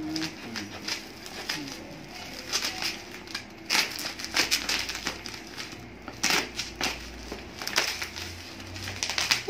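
Plastic parcel wrapping and packing tape being torn and crinkled by hand: irregular crackling with several sharper rips scattered through.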